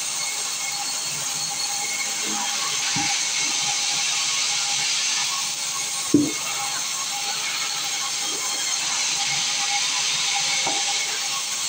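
Sawmill machinery running with a steady hiss and hum, with a few scattered knocks of wood and one louder thump about six seconds in.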